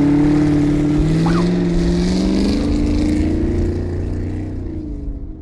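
Off-road desert race truck's engine running, its pitch drifting up and down a little, then fading away near the end.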